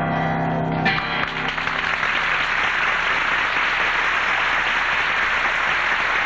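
Stage music ends about a second in on a held chord, and audience applause follows, steady to the end.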